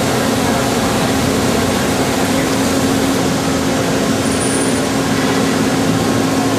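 CNC lathe running: a steady machine noise with a constant hum, and a brief faint high whine about four seconds in.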